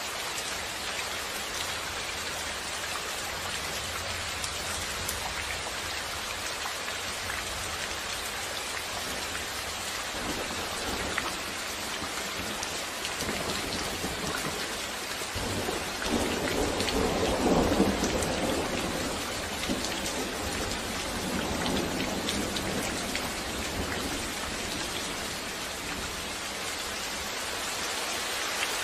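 Steady rain falling, with a rumble of thunder that swells about halfway through and dies away over a few seconds.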